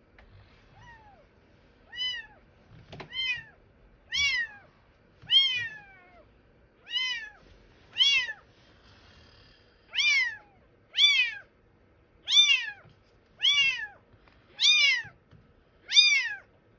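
A young kitten meowing loudly and repeatedly, about one call a second, each call rising and then falling in pitch, starting about two seconds in and getting louder.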